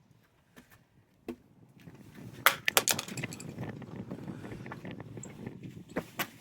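Handling noise of a smartphone and a screwdriver being worked by hand: sharp clicks and knocks, then a steady rough scraping and rustling from about two seconds in, with a cluster of loud clicks shortly after.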